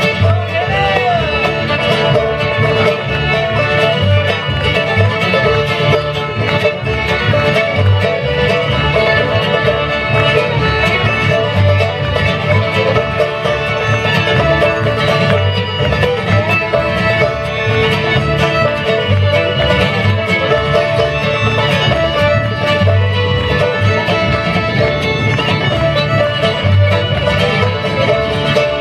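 Live bluegrass band playing a fast fiddle tune, with three fiddles carrying the melody over acoustic guitar, banjo and a steady upright bass pulse.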